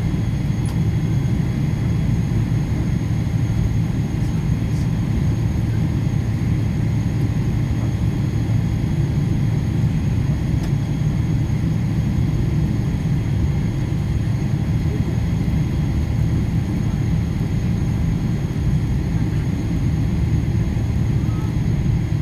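Steady low rumble of an airliner's cabin on the ground, the jet engines idling and the air conditioning heard from inside, with faint steady high tones over it.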